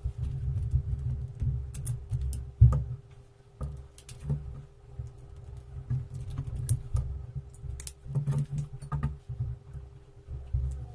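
Small handling sounds from squeezing and capping plastic acrylic paint tubes and working paint on a plate with a toothpick: scattered light clicks and taps, with a sharper knock a little under three seconds in, over low bumps against the table, and a faint steady hum underneath.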